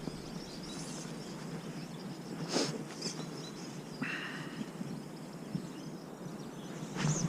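Steady outdoor noise of wind and rain, with a brief sharper sound about two and a half seconds in and a short hiss about four seconds in.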